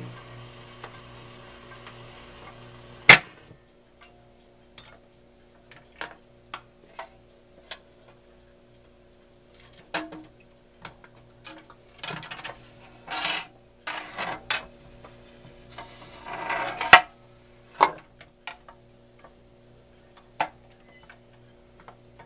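Capehart flip changer's record-turnover mechanism cycling. Faint surface hiss runs until a sharp click about three seconds in, then scattered clicks and clunks come as the record is lifted, turned over and set back on the platter, the loudest knocks near the end, over a steady motor hum.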